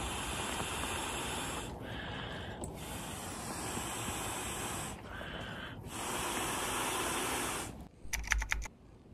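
An inflatable being blown up by mouth: long, breathy exhales into the valve, with two short pauses for breath. A brief burst of sharp clicks comes near the end.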